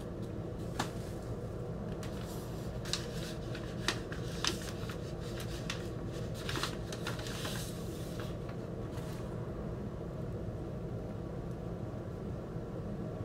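Paper inner sleeve rustling and crinkling with a few sharp clicks as a vinyl LP is slid out of it and handled, dying away about nine seconds in. A steady low hum runs underneath.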